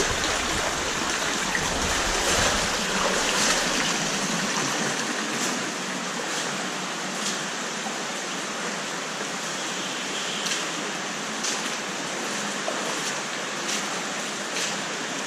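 The Bigar, a small underground stream, running steadily over rocks inside the cave, with a few faint clicks scattered through it.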